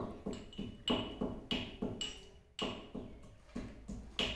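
Peanuts being pounded with a pestle in a small steel mortar (kundi sota): steady strikes about three a second, each with a metallic ring, with a short pause about halfway through.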